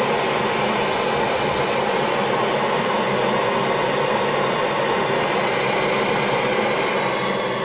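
Television static: a steady hiss of white noise, easing down a little near the end.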